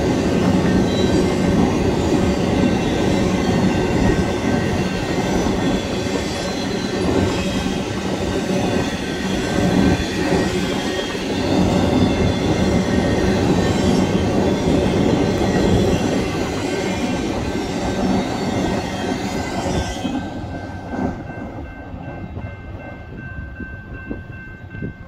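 Double-stack intermodal freight train rolling past, a steady rumble of wheels on rail with thin steady squeal tones above it. The rumble drops off sharply about twenty seconds in, leaving a fainter squeal.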